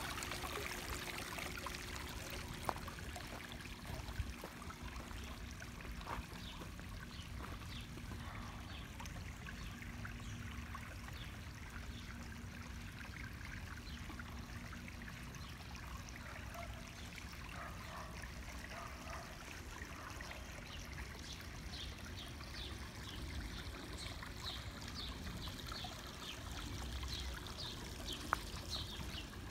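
Water trickling and splashing from a tiered stone garden fountain, steady and strongest at the start, slowly growing fainter. Short high bird chirps come in during the last several seconds.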